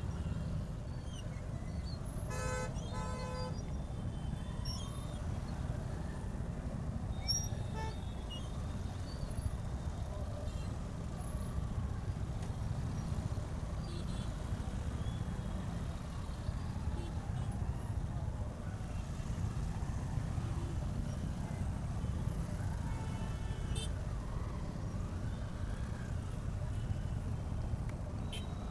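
Steady low rumble of a motorcycle ride in traffic, engine and road noise picked up by a bike-mounted camera. A vehicle horn honks twice in quick succession about two seconds in.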